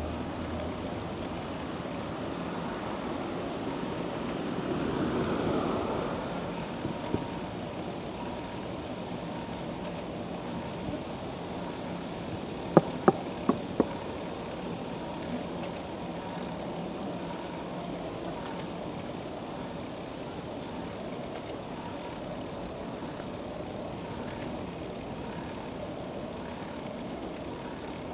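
Steady city street noise heard from a moving bicycle: an even drone of traffic and riding noise, with a passing swell about five seconds in. Four sharp clicks come close together about halfway through.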